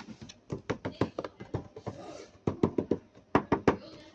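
Sharp taps and knocks of hands handling a toy truck's box and packaging, coming in quick irregular runs, with a brief rustle about two seconds in.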